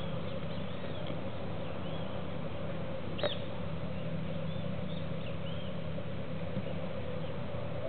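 Several short, high chirps from small birds, scattered through, over a steady low hum. One sharp click comes a little over three seconds in.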